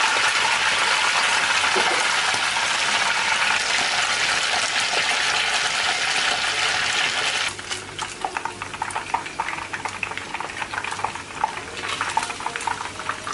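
Chicken pieces deep-frying in hot oil in a non-stick wok. A loud, dense sizzle while the pieces are still raw drops suddenly about seven seconds in to a quieter crackle with scattered sharp pops once they are golden brown.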